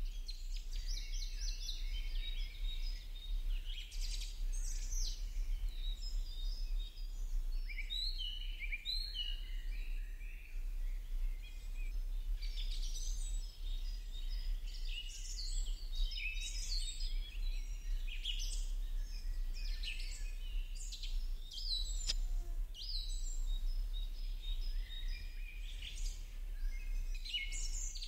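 Several small birds chirping and twittering, short high calls overlapping one another almost without pause, over a steady low hum.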